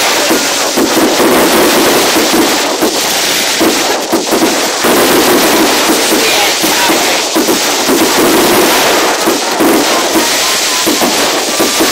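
Fireworks crackling and popping in a dense, continuous barrage, loud throughout.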